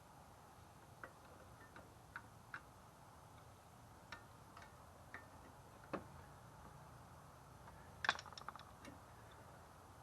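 Scattered light clicks and taps of brake pads and their metal clips being handled and fitted, with a short clatter of rapid clicks about eight seconds in, over a faint low hum.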